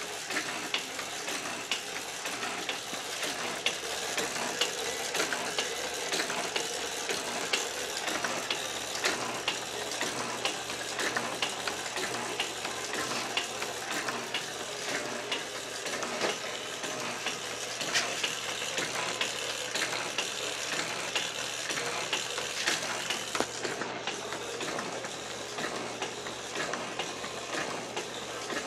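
FORD benchtop metal shaper running under its electric motor, the ram stroking back and forth, with a steady hum and a constant clatter of frequent sharp mechanical clicks.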